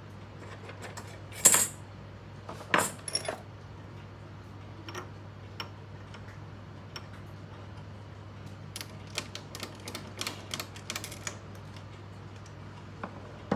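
Sharp metallic clicks and clanks as the tool post and slides of a small metal lathe are handled. Two louder clanks come in the first three seconds and a run of lighter clicks follows about nine to eleven seconds in, over a low steady hum.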